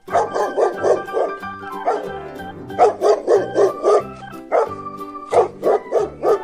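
A dog barking in quick runs of several barks each, over light background music.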